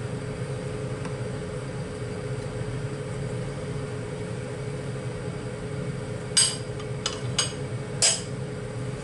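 Kitchen range-hood ventilation fan running with a steady hum, and four light clinks of a metal ladle against a dish in the last few seconds.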